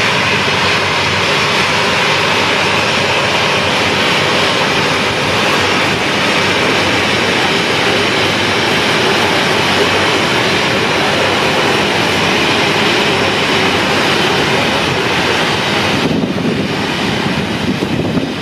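Jet engines of a Boeing 737 at taxi idle as it rolls onto its stand, heard through window glass as a steady rush of noise. The higher part of the sound thins out about sixteen seconds in.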